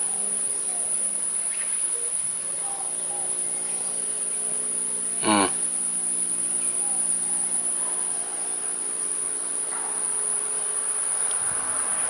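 Continuous high-pitched shrilling of insects, steady throughout, over a faint low hum. A single short pitched call about five seconds in.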